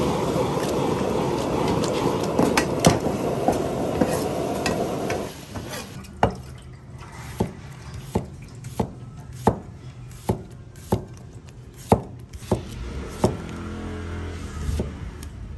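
A frying pan of sauce on a gas stove gives a steady hiss with scraping clicks for about five seconds. Then a cleaver slices a cucumber on a plastic cutting board: a sharp knock about every two-thirds of a second.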